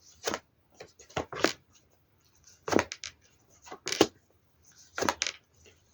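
Tarot cards being handled and laid down on a table: a series of short, sharp card snaps and slaps at irregular intervals, the loudest about three and four seconds in.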